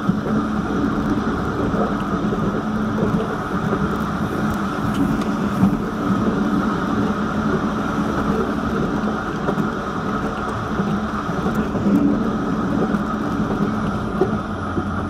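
Vityaz-M low-floor tram running along the track: a steady rolling rumble of wheels on rail with the hum of the drive, and a few faint clicks.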